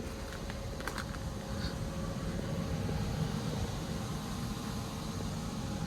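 Steady low vehicle rumble, with a few faint clicks about a second in.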